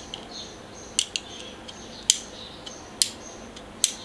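Light, sharp clicks about once a second, with a quick double click a second in, from a plastic toy vehicle being handled.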